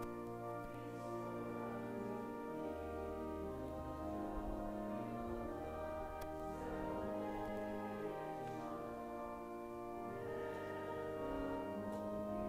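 Slow instrumental music of held, organ-like chords that change every second or two over long, sustained bass notes.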